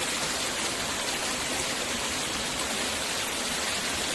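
Water rushing over rocks in a shallow stream, a steady, even rush.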